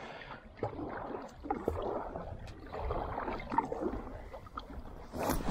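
Kayak paddle strokes through calm water: the blades dip and pull with irregular splashes and drips, and there is a louder splash near the end.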